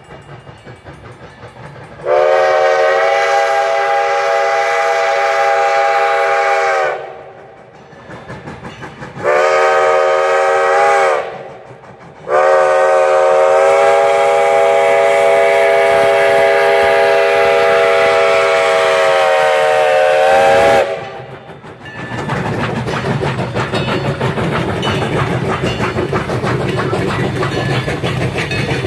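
Steam locomotive chime whistle sounding for a grade crossing: a long blast, a short one, then a long one, each with several tones together that sag slightly as they end. About three-quarters through, the double-headed narrow-gauge steam train passes close by with heavy exhaust and rail clatter.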